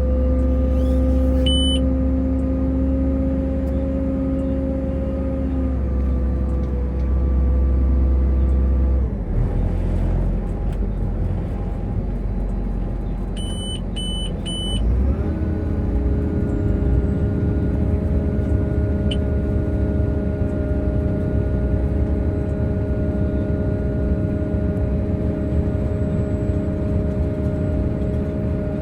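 Grimme Varitron 270 self-propelled potato harvester running steadily while its bunker is unloaded into a trailer. The machine's note drops about nine seconds in and rises to a new steady hum about fifteen seconds in. A short electronic beep sounds near the start and three quick beeps sound about fourteen seconds in.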